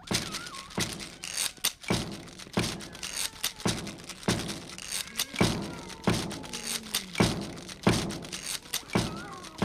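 A steady percussive beat of loud thumps, about three every two seconds, opening an animated flamenco-style dance-off. Faint wavering high tones sound between the thumps.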